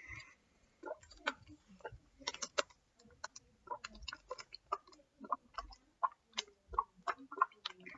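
Slime being worked with the fingers close to the microphone, making irregular sticky clicks and small crackles, several a second.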